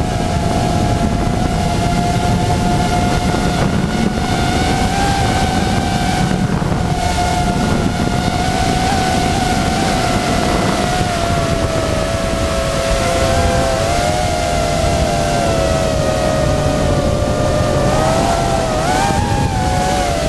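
Quadcopter drone's propellers whining steadily in flight, over a low wind noise; the pitch wavers and jumps briefly near the end as the drone drops low.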